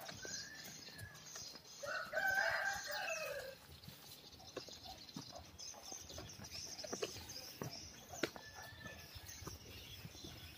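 A rooster crowing once, about two seconds in, over faint outdoor background with a few light clicks.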